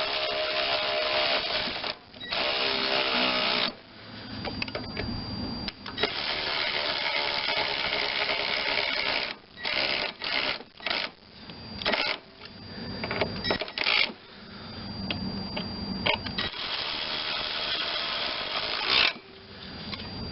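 Mounting bolts for a small-engine carburetor being run in with a socket tool. The mechanical noise comes in several runs with short pauses between them.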